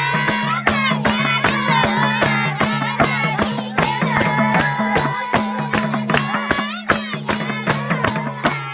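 Nepali folk music: an even beat of rattling percussion strokes, about three to four a second, under a wavering melody and a low sustained note that shifts pitch.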